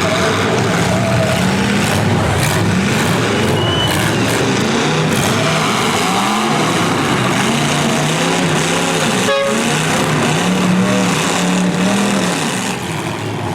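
Demolition derby cars' V8 engines revving, several at once, their pitch rising and falling, with a sharp crash or knock about nine seconds in.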